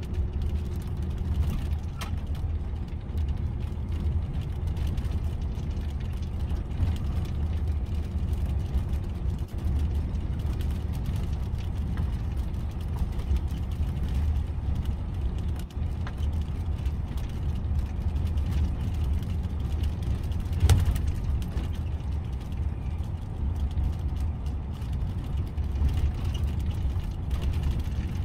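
Steady low engine and tyre rumble inside a vehicle driving along a rough, narrow country lane, with light rattles and a sharp knock about 20 seconds in.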